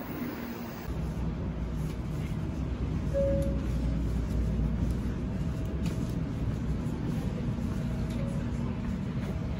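Low, steady rumble of a Shinkansen train, growing louder about a second in, with a short beep about three seconds in.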